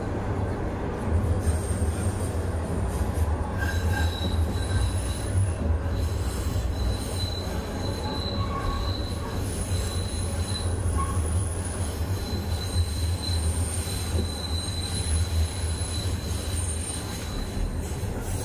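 Toronto Rocket subway train running through the tunnel, heard from inside the car: a steady low rumble, with thin high-pitched wheel squeal that comes and goes from about four seconds in.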